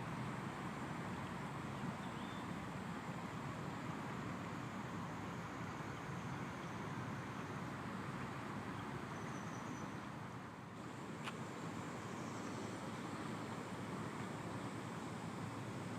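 Steady low rushing outdoor background noise, with a few faint high chirps here and there and a single sharp click about two-thirds of the way through.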